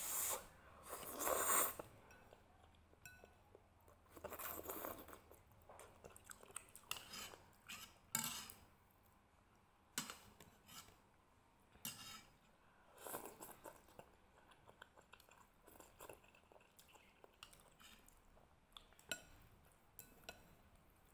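Noodles in soup being slurped up in loud bursts about a second in and again around four seconds, then chewing, with occasional sharp clicks of plastic chopsticks against the bowl.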